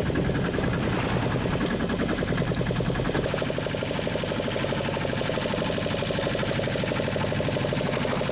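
Small fishing boat's engine idling with a fast, even knocking pulse; its note changes about three seconds in.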